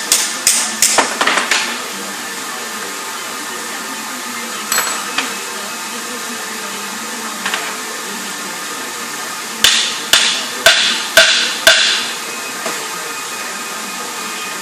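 Hammer blows on the metal of a refrigeration compressor being torn down. There is a quick run of strikes at the start, a couple of lone knocks midway, and five evenly spaced blows about half a second apart near the end, over a steady background hum.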